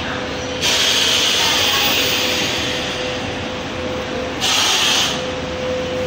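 Running factory machinery: a steady hum with a constant mid-pitched whine. A louder hiss comes in just after the start, fades out by about three seconds, and returns briefly near the end.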